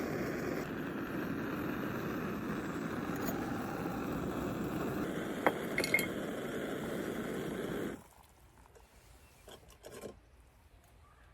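Steady rushing noise that cuts off abruptly about eight seconds in, with two sharp clinks of dishes or utensils a little past halfway; faint small sounds follow.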